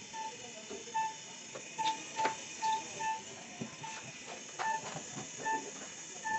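Gas torch flame hissing steadily while brazing refrigerator copper lines, with a string of short high-pitched chirps at irregular intervals and a few sharp clicks.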